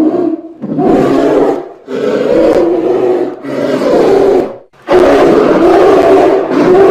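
A large wild animal calling loudly in four drawn-out, pitched bouts, the last one longer than the rest.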